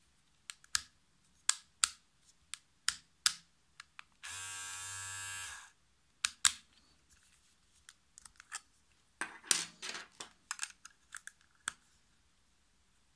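Aprilla AHC-5035 cordless hair clipper switched on for about a second and a half about four seconds in, its motor and blade buzzing steadily. A run of sharp plastic clicks and rattles comes before and after it as the clipper and its snap-on guide comb are handled.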